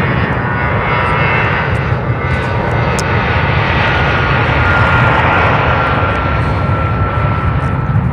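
Avro RJ85 air tanker's four turbofan engines at takeoff power during the takeoff roll: a loud, steady jet noise with a high whine that slowly falls in pitch.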